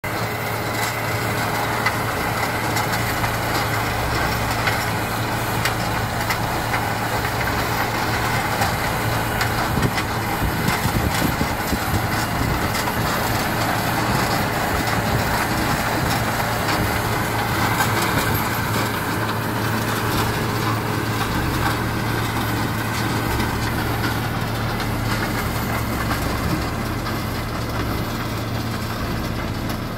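Tractor's diesel engine running steadily under load as it pulls a mechanical sugar cane planter, with a constant low hum and a broad rumble of machinery.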